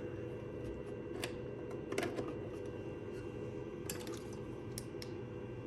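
A few light clicks and taps of plugs and small gear being handled, over a steady low hum.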